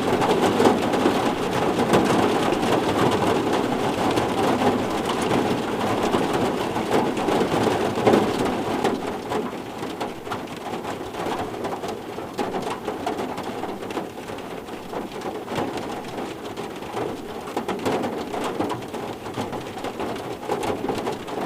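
Steady rain falling, a dense patter of drops on a surface, easing a little about halfway through.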